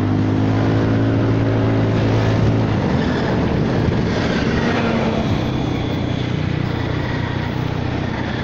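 Honda Forza 300 scooter engine running through an aftermarket exhaust fitted with a silencer insert, a steady low hum for the first three seconds or so, then mostly wind noise on the microphone. The exhaust is quiet, much like the stock pipe.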